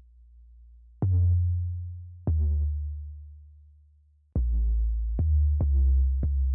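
Background electronic music: deep bass notes struck one at a time and fading, with almost nothing in the first second. The notes come a second or more apart at first, then quicker after about four seconds.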